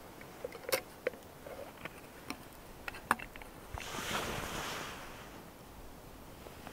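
Metal lid of a soot-blackened camp kettle clinking and knocking as it is lifted off and set down, several sharp clicks in the first three seconds, followed by a brief rustling about four seconds in.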